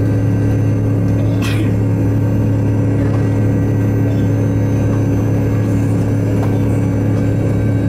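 MD-88's rear-mounted Pratt & Whitney JT8D-219 turbofan idling, heard from inside the cabin beside the engine: a loud, steady drone with a low hum and a few steady whining tones. A brief click about a second and a half in.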